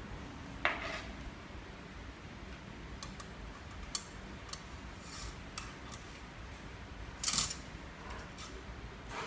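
A few light metallic clinks and taps against a stainless steel pot as cocoons in hot water are worked with a hooked stick for silk reeling: a sharp clink about a second in, scattered small ticks, and a longer scraping rustle near the end.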